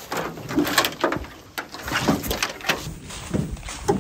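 Footsteps in boots crunching through dry fallen leaves at a walking pace, about two to three steps a second.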